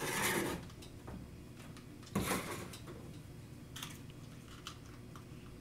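Two short hissing squirts from a plastic trigger spray bottle of detailing spray, about two seconds apart, followed by a few light plastic clicks as its nozzle is handled.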